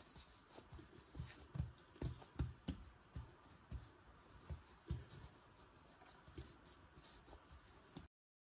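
Hands pressing and patting soft stollen dough flat on a floured wooden board: faint, irregular dull thumps with light rubbing, the thumps strongest in the first half.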